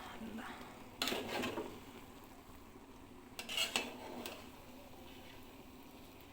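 A spoon scraping and clinking against a pot of biryani as it is stirred and checked, in two short bouts about a second in and about three and a half seconds in.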